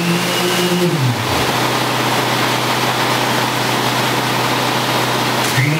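Concrete mixer truck's engine running at high revs, dropping to a lower idle about a second in and revving back up near the end, over a steady rushing noise, as concrete is discharged down the truck's chute.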